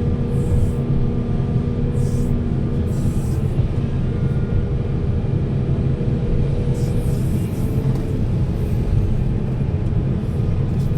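Heavy diesel engine running steadily with a low rumble, with a few brief high hisses over it.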